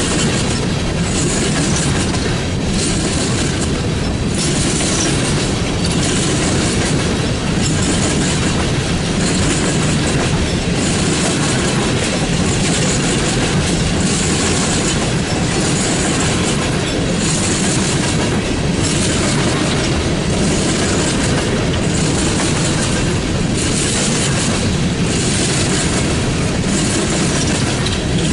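Norfolk Southern freight train rolling past close by: a steady rumble of railcars with a repeating clickety-clack of wheels over the rail joints.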